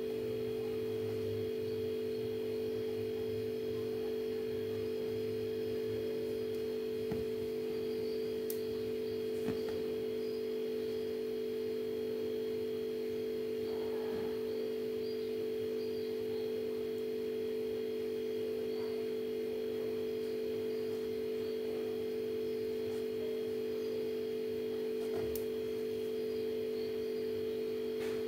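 A steady hum of a couple of low tones that holds unchanged throughout, with a few faint clicks.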